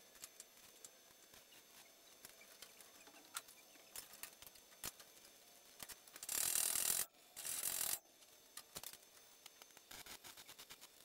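Electric arc welding on a steel frame: two short bursts of hissing arc, each under a second, with a brief break between them, about six seconds in. Faint scattered ticks around them.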